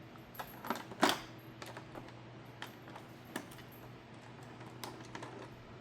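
Irregular small clicks and taps of die-cast toy cars and their plastic packaging being handled, with the loudest click about a second in.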